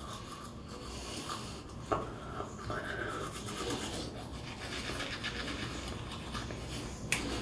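Manual toothbrush scrubbing teeth with toothpaste, a steady scratchy brushing, with two short clicks, one about two seconds in and one near the end.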